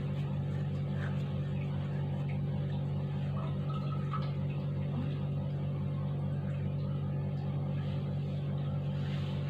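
A steady low hum with a few faint rustles from paper being handled.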